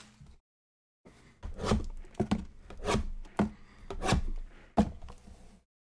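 Knife blade slitting and scraping the plastic shrink-wrap on a sealed trading-card box, with about six sharp knocks as the box and blade hit the table.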